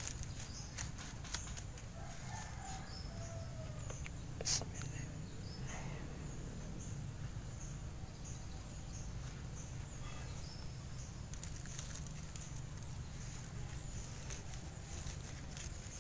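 Soil rustling and a thin clear plastic cup crinkling and clicking as hands press potting soil firm around a cutting, with one sharper click about four and a half seconds in. A bird calls faintly in the background a few seconds in.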